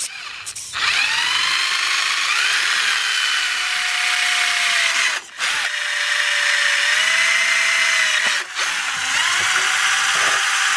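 Milwaukee M12 cordless drill boring small holes through a rubber pedal insert and the factory accelerator pedal: a steady motor whine that shifts in pitch as the trigger is worked, stopping briefly twice.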